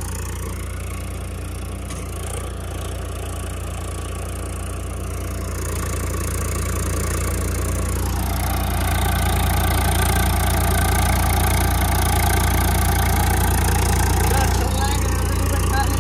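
Swaraj 855 tractor's three-cylinder diesel engine running steadily. It grows louder from about six to ten seconds in, as if revved up, then holds there.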